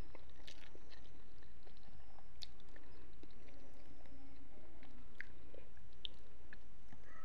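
A person chewing and eating food by hand, with scattered small wet clicks and crackles of mouth and fingers.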